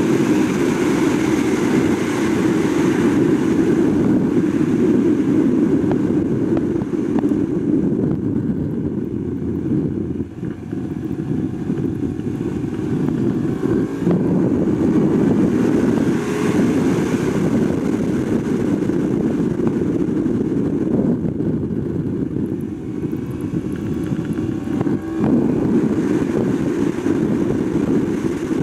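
Onboard sound of a 2021 Yamaha R1 at track speed: heavy wind rush over the microphone mixed with its crossplane inline-four engine. The level dips briefly about ten seconds in.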